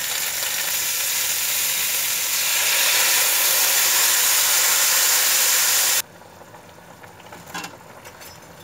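Chicken wings and carrots sizzling in a hot steel wok, the sizzle growing louder about two and a half seconds in as a dark sauce is poured in, then cutting off abruptly about six seconds in.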